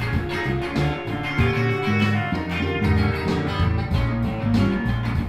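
Instrumental outro music led by guitar, over a strong bass with a steady beat.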